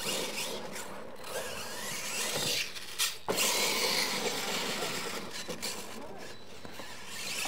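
Radio-controlled monster truck running hard on a dirt track, its motor and gears rising and falling with the throttle and its tyres scrabbling through loose dirt. There is a sharp knock about three seconds in.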